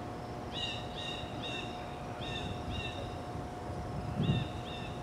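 Osprey calling from its nest: a run of five short, high whistled calls in quick succession, then two more near the end. A brief low thump comes about four seconds in.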